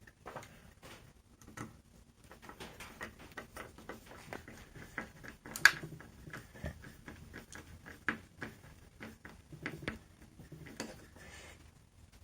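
Light, irregular clicks, taps and scrapes of a screw and small parts being worked by hand, with one sharper click about five and a half seconds in.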